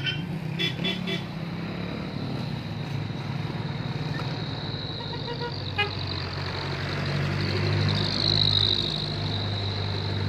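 Motor vehicle running with a steady low hum and a steady high whine, with three quick horn beeps about a second in.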